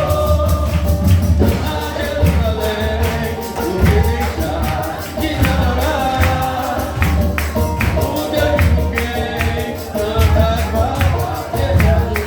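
A church worship group singing a praise song in Portuguese, with tambourine and a band playing along to a steady beat.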